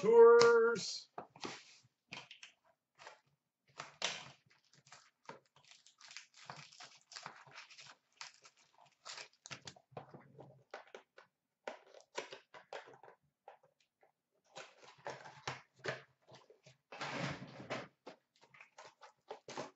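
Trading card boxes and packs being handled and opened by hand: scattered light clicks and cardboard and wrapper rustles, with a longer rustle of about a second near the end.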